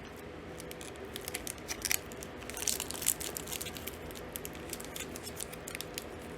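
Light crinkling and irregular small clicks of trading-card packs and cards being handled, busiest a couple of seconds in, over a faint steady hum.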